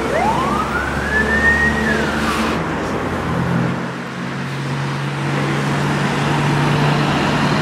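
Road traffic: vehicle engines running steadily, with a single whine near the start that rises and then falls over about two seconds.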